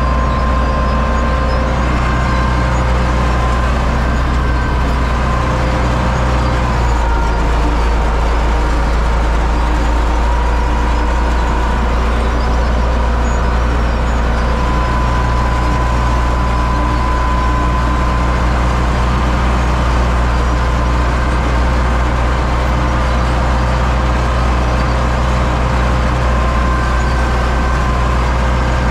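U650 tractor's four-cylinder diesel engine running steadily under load, with a steady high whine alongside the low engine hum.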